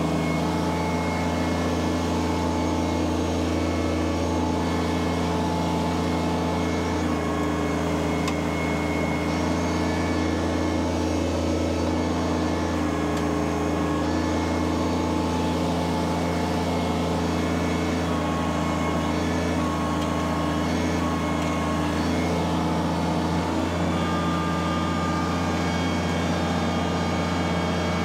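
Kubota BX subcompact tractor's three-cylinder diesel engine running steadily at a constant speed, its pitch unchanging, while working to lift a heavy log.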